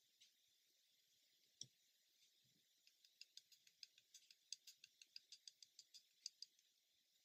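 Pencil tip scratching in quick short strokes on a plastic scale model: a run of faint small ticks, about six a second, for a few seconds. A single soft knock, a tool put down on the cutting mat, comes about a second and a half in.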